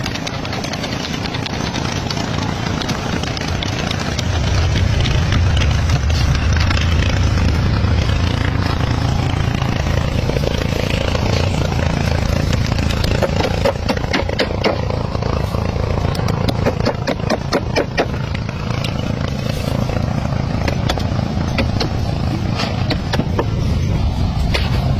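An engine running steadily, with a run of sharp knocks in the second half.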